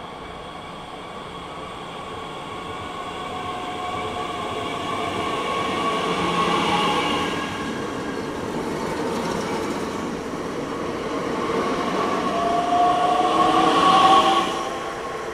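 Bombardier Talent 2 electric multiple unit running through the station without stopping, its motors whining over the noise of the wheels on the rails. The sound grows louder as the train draws level, peaks twice, and drops away sharply about fourteen seconds in as the last car passes.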